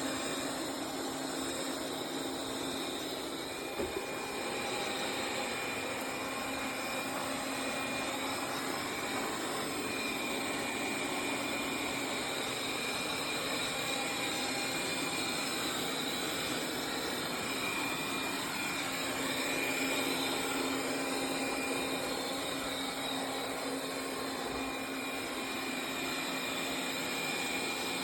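BPMIO robot vacuum running, a steady whir of its suction motor with a constant hum. A brief click about four seconds in.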